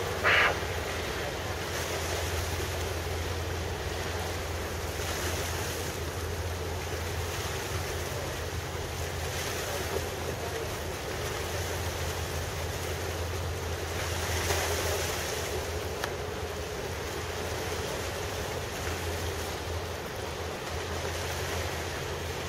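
Wind buffeting the microphone and water wash over a steady low engine drone, heard from a boat out on the harbour. The wind swells briefly about two-thirds of the way through.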